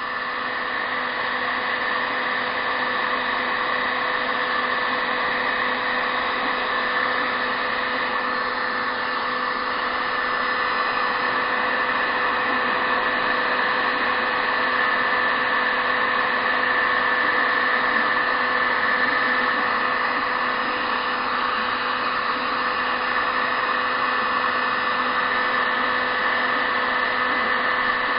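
Heat gun standing upright and running steadily: a constant rush of blown air with an unchanging fan-motor whine. It is heating a 3D-printer extruder heat break to melt out filament clogged by heat creep.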